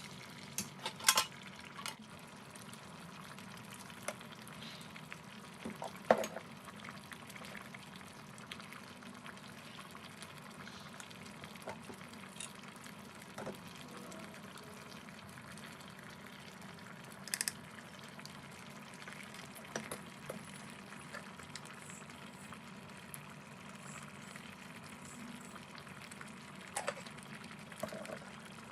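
Pot of mutton biryani bubbling on the heat, a steady low hiss, with a few sharp clicks or knocks now and then.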